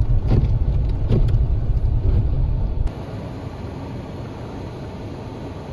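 Car driving: a loud low rumble of engine and road noise with a few short clicks, which cuts off abruptly about three seconds in, giving way to a quieter steady hiss.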